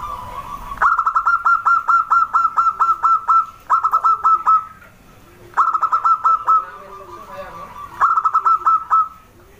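Zebra dove (perkutut) calling in four bursts of rapid staccato notes, about eight a second. The first burst is the longest, about two and a half seconds, and the others last about a second each, with fainter low coos between them.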